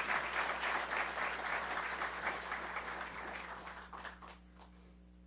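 Audience applauding; the clapping fades about three to four seconds in and ends in a few last scattered claps.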